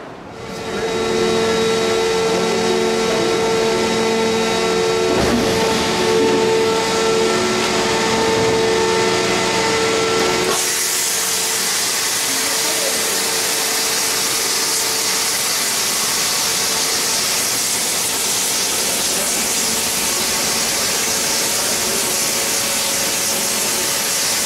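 Steady machine hum with several held tones, then from about ten seconds in a steady loud hiss of gas burner flames heating a glowing red-hot steel tube on a metal-forming machine.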